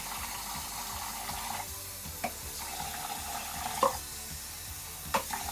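Water running steadily from a tap during a hair wash, with a few soft knocks.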